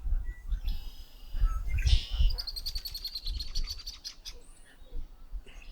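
Osprey calling: a fast run of high, repeated chirping notes, beginning about two seconds in and lasting about two seconds, with a low rumble underneath.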